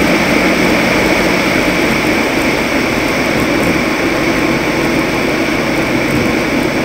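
Toyota race truck driving at speed, heard through an action cam mounted on it: a steady, loud mix of engine, tyre and wind noise.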